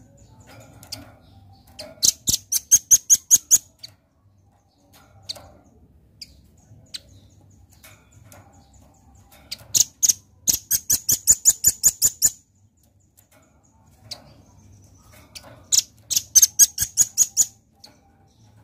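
Velvet-fronted nuthatch calling in three bursts of rapid, sharp, high chipping notes, about seven notes a second, each burst lasting around two seconds, with a few single faint notes between.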